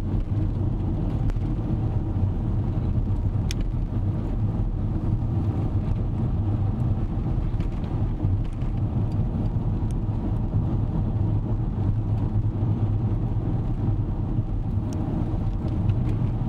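Steady low hum of a car's engine and tyre noise on the road, heard from inside the moving car's cabin, with a faint click or two.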